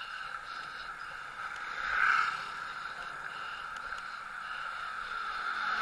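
Steady rushing whir of a bicycle being ridden along a paved lane, swelling louder about two seconds in and again near the end.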